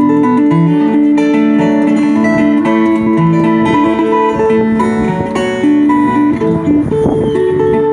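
Acoustic guitar playing an instrumental passage between sung verses of a folk ballad, with plucked notes ringing over a changing bass line.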